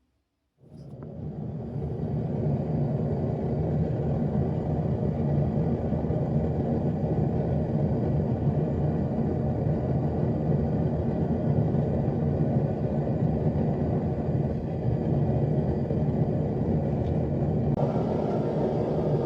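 A forge running with a steady, low roar that builds up from silence over about a second and a half; near the end a higher hiss joins in.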